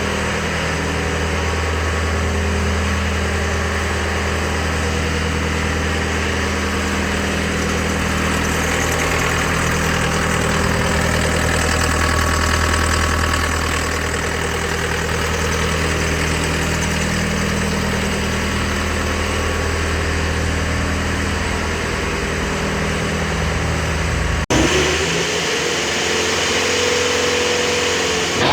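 John Deere 325G skid steer's diesel engine idling steadily. After a sudden break near the end, a whine rises and then holds at a higher pitch.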